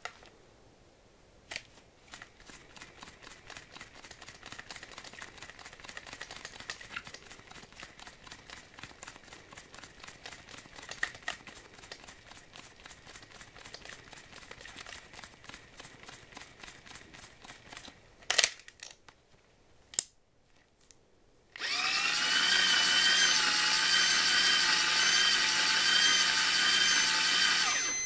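Shimano Dendou TM4000H electric reel: fast, even ticking as the spool turns with line paying out, then two sharp clicks. Then its motor whirs steadily for about six seconds as it winds line back in, and cuts off abruptly at the end.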